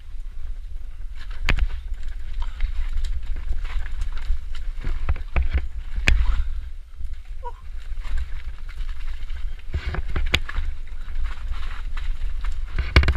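Mountain bike rolling fast down a rough dirt trail: tyres on dirt and dry leaves with the bike rattling over a steady low rumble, and several sharp knocks as it hits bumps.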